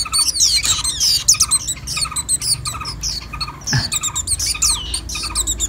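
Caged white-eyes calling: a rapid run of short, high, down-slurred chirps, several a second. A single soft knock comes about four seconds in.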